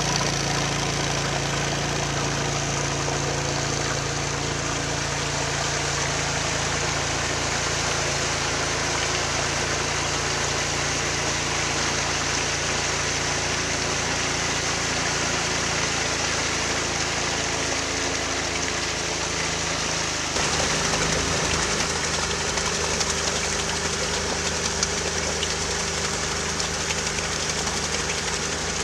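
Amphibious ATV's engine running steadily, its note changing about twenty seconds in.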